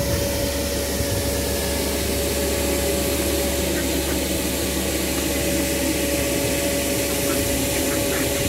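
Steady drone of running machinery, with a constant whine and a low hum that do not change.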